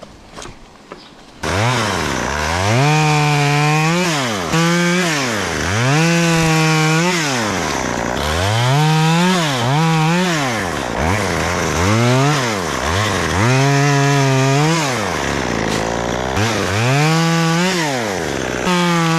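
Chainsaw engine starting up about a second and a half in, then revved up and down again and again, each rise held briefly before the pitch drops back.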